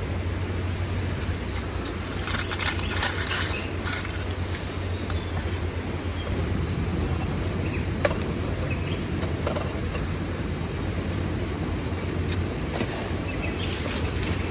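Steady rain on a tent with scattered sharper drop taps, over a constant low rumble.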